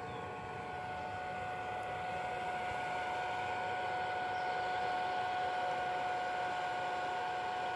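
Small battery-powered motor and fan of a whale-shaped toy bubble machine whirring steadily, with a constant hum tone, as it blows out a stream of bubbles; it grows a little louder over the first few seconds.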